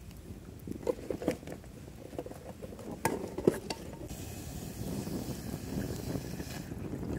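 Steel cup and cooking pot clinking as they are handled at a small camping stove while making coffee: a few sharp clinks about a second in and again around three seconds in. A steady hiss follows in the second half.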